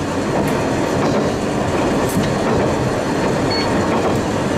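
Tarumi Railway Hi-Mo 295 diesel railcar running along the track, heard from the driver's cab: steady running noise of engine and wheels on rail.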